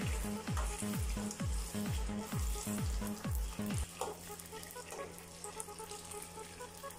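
Golgappa puris sizzling as they deep-fry in hot oil. Under the sizzle, background music with a steady thumping beat of about two a second drops out about four seconds in, leaving held low notes.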